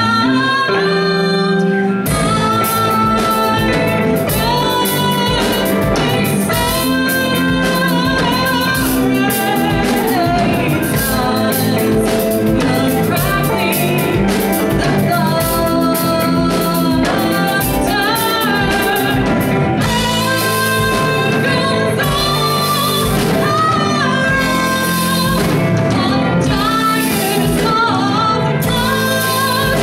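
Live band music: a woman singing over electric guitar, bass guitar and drums. The drums come in about two seconds in, and the full band plays on steadily after that.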